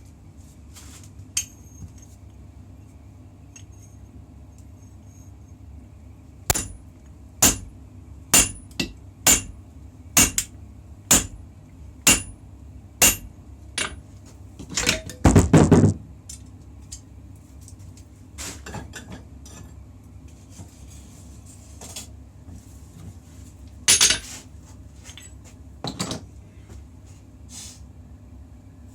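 Hammer striking steel on an anvil, with metallic ringing on each blow: a steady run of about one blow a second, then a quick loud flurry, then two single blows near the end.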